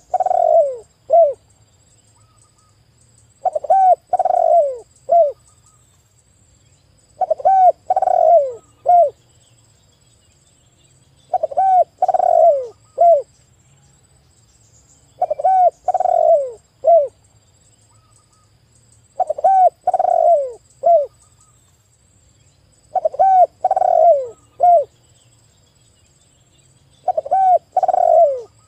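Spotted dove cooing. A three-note phrase, with a short first coo, a longer middle coo and a short clipped last note, is repeated about every four seconds, eight times over.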